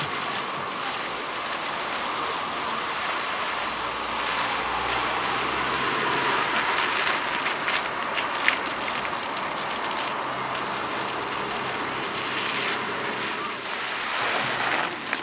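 Pond fountain jet spraying up and falling back onto the water in a steady splashing patter.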